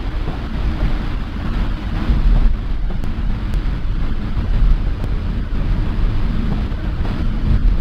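Steady road noise heard inside a vehicle cabin driving on a rain-soaked road: a low rumble of engine and tyres with the hiss of wet tyres and spray.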